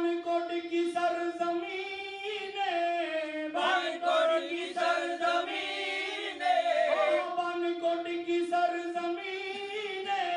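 Men singing a devotional song in praise of a Sufi saint, the lead voice through a microphone, with long held and wavering notes and a second voice joining in.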